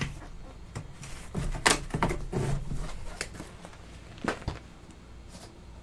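Handling noises from a cardboard box and its packaging: a run of knocks and rustles in the first three seconds, then one sharp click a little past four seconds in, over a low steady hum.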